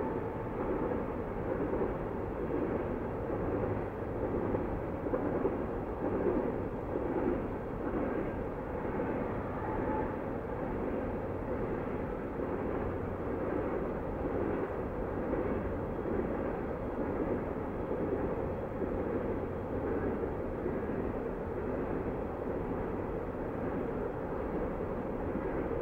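Distant Canadian National freight train passing, a steady echoing rumble of rolling cars and locomotives.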